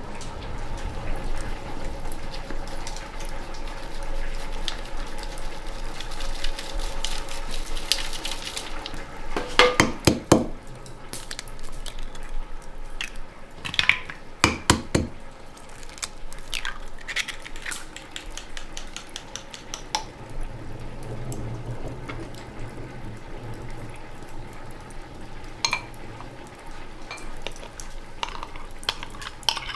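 Metal utensils clinking and scraping against pots and dishes, with sharp knocks clustered about ten seconds and fifteen seconds in.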